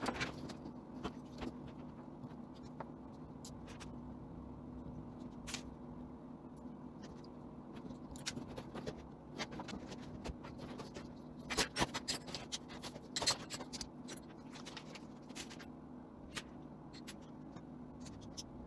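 Plastic drag-chain (cable carrier) links clicking and rattling as they are handled, in scattered light clicks with a denser, louder flurry about two-thirds of the way through. A faint steady hum runs underneath.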